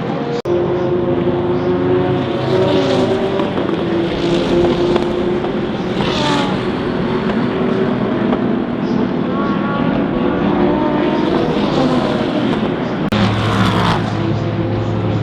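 Several sports-prototype and GT race car engines running at speed, their pitches overlapping and rising and falling as the cars pass. One car sweeps past sharply about six seconds in, and another near the end.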